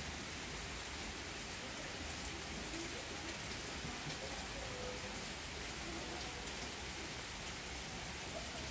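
Steady rain falling on garden foliage and wet paving, an even hiss with a few separate drop ticks.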